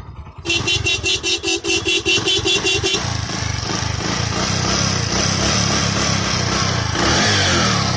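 Motorcycle horn on a Bajaj Discover 100cc sounding in a rapid pulsing beep, about five pulses a second, for about two and a half seconds. It stops, and the bike's engine keeps running.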